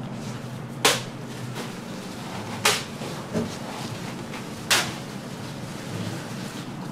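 Gloved hands coating batter-dipped beef in a tray of panko breadcrumbs: three sharp pats and crunches as the meat is pressed into the crumbs, over a steady low hum.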